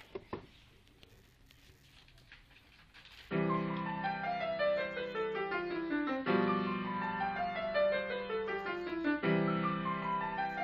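Grand piano being played: after a few seconds of hushed room with two short knocks near the start, a low chord sounds a little over three seconds in, followed by a descending run of notes, and the pattern repeats twice more, each phrase opening with a fresh low chord about every three seconds.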